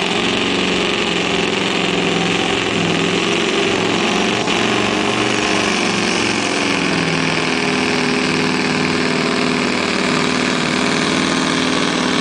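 Scania V8 diesel pulling truck running flat out under full load as it drags the weight sled down the track, a loud, steady engine note that wavers a little in pitch.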